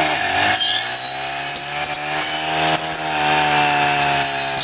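Honda four-stroke brushcutter fitted with a saw blade running at high revs. The engine note dips briefly just after the start as the blade takes a load, then climbs back up and holds.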